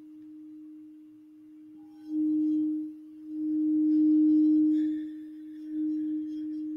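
Crystal singing bowl sung by circling a wand around its rim: one steady, sustained tone that swells louder three times as the rubbing builds, with faint higher overtones.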